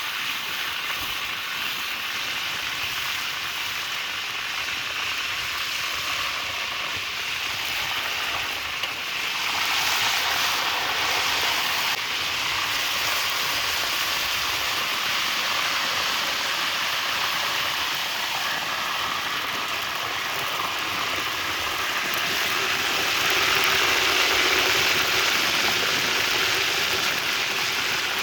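Mudfish frying in hot oil, a steady sizzle that swells about ten seconds in and again near the end.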